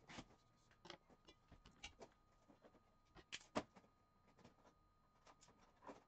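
Scattered light clicks, knocks and rustles of an e-drum rack's tubes and clamps being handled and fitted together, with a sharper knock about three and a half seconds in.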